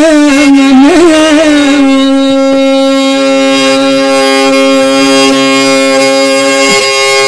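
Background music: a slow melody with wavering, bending notes that settles about two seconds in onto one long held note, which drops away near the end.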